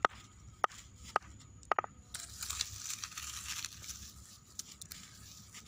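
A hand-held stone strikes a plant stem laid on a rock: four sharp knocks about half a second apart. Then comes a crackling rustle as the crushed stem is pulled apart by hand.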